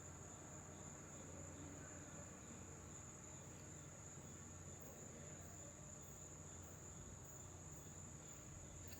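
Near silence: quiet room tone with a steady, unbroken high-pitched whine and a faint low hum.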